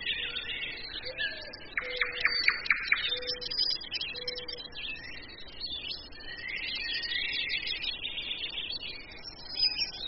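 Forest birdsong: several birds chirping and twittering high and continuously. A quick run of about six sharp notes comes about two seconds in, and a low short call repeats about four times in the first half. Underneath is a soft steady hiss.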